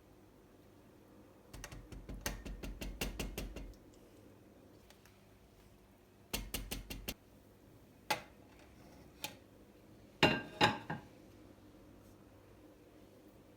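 Kitchen utensils clicking and clinking against dishes: a quick run of about ten clicks, a shorter run, two single clicks, then a louder cluster of knocks near the end.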